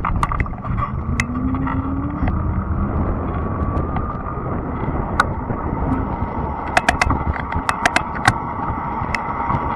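Fat-tire e-bike riding along a trail: a steady rumble of riding noise with a faint steady whine, and scattered sharp clicks and rattles, with a quick run of them about seven seconds in.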